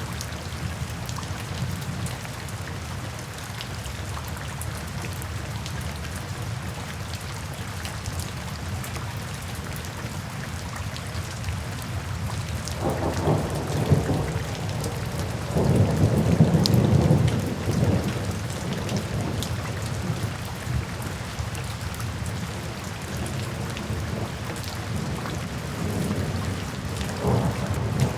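Steady rainfall with thunder rumbling: a long low roll swells up about halfway through and fades, and a shorter rumble comes near the end.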